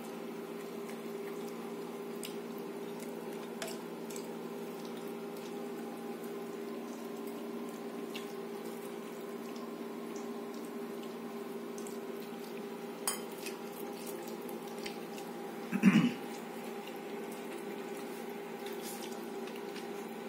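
Faint clinks and taps of steel plates, bowls and tumblers during a meal eaten by hand, over a steady low hum. About sixteen seconds in there is one brief, louder sound.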